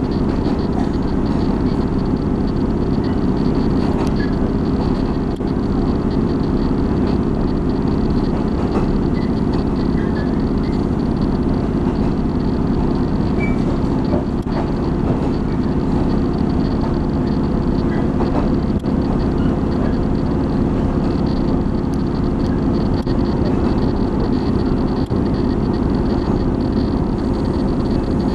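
Steady running noise heard inside a moving diesel railcar: a constant low rumble of wheels on the rails and the engine, with a faint high hum and a few light clicks.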